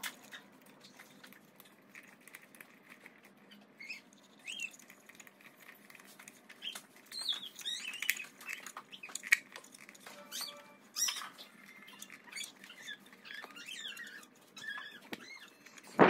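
Bundled scooter wires and plastic connectors being handled and stuffed into a deck compartment: quiet, irregular rustling and scratching with small squeaks and clicks, busiest in the second half.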